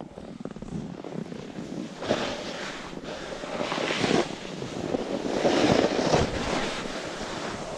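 Wind rushing over the microphone, swelling louder in gusts about two, four and six seconds in.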